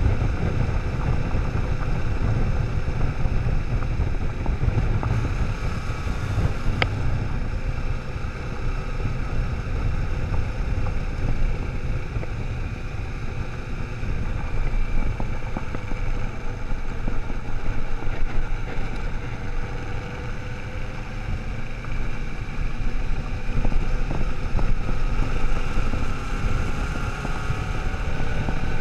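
Kawasaki motorcycle riding along a gravel road: the engine runs steadily, its pitch drifting a little with the throttle, under heavy wind noise buffeting the microphone. A single sharp tick about seven seconds in.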